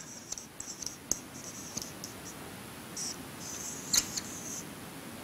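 Whiteboard marker squeaking against the board in a series of short, high strokes as words are written, with a sharp tap about four seconds in.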